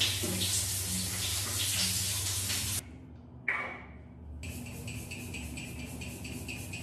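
Water running in a steady hiss, then cutting off suddenly a little under three seconds in. Soft background music with a light, quick ticking beat carries on afterwards.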